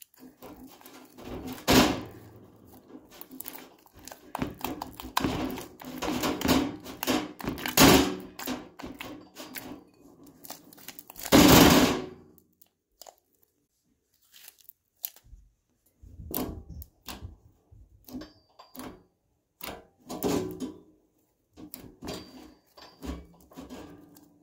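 Homemade slime being squeezed, stretched and kneaded by hand: irregular wet squishes and sticky tearing sounds, busiest in the first half with the loudest ones about two, eight and twelve seconds in, then sparser short squelches.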